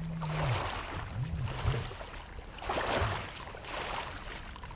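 Person in waders wading through shallow floodwater, the water swishing in swells about a second apart with each step.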